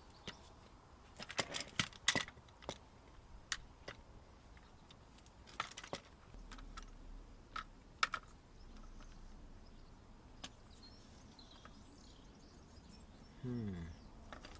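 Scattered metallic clicks and clinks of the removed front shock absorber assembly and hand tools being handled, a few at a time, with the loudest about two seconds and eight seconds in.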